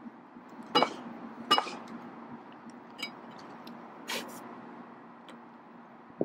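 A metal hand tamper knocks twice on the solid-rubber home plate, about three-quarters of a second apart, tamping it down to level it in its bed. A few fainter knocks follow, and a short click comes near the end.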